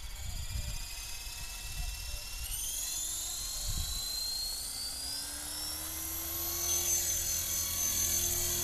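Electric 450-size RC helicopter spooling up: the motor and gear whine climbs steadily in pitch from about two and a half seconds in as the main rotor gathers speed, growing louder toward the end as the model lifts off.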